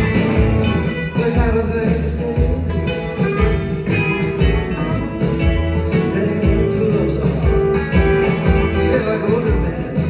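Live blues-rock band with drums, bass, guitar and grand piano playing a steady-beat song, heard from the audience seats of a theatre.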